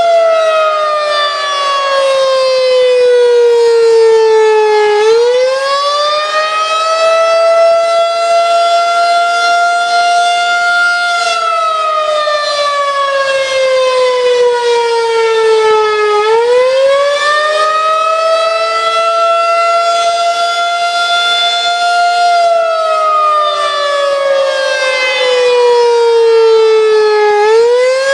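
Federal Signal 2001-SRN electromechanical tornado siren sounding loud, winding up and down in a slow wail. Its pitch rises quickly, holds for about five seconds, then slides down for about five seconds, and the cycle repeats about every eleven seconds.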